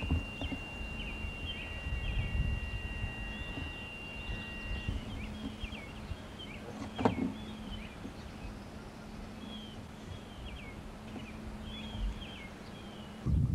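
Outdoor ambience of wind rumbling on the microphone, with a bird singing short, quickly repeated chirps. A single knock sounds about seven seconds in.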